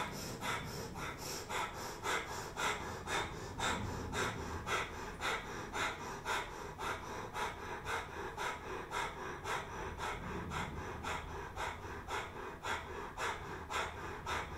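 Kundalini breath of fire: a woman's rapid, rhythmic forceful exhales through the nose, about two to three a second, driven by pumping the navel back toward the spine.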